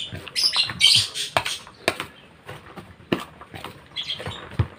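Small caged parrots squawking and chirping in short high bursts, loudest about a second in and again near the end. Under them, scattered clicks and rustling from hands mixing chopped vegetables in a plastic basin.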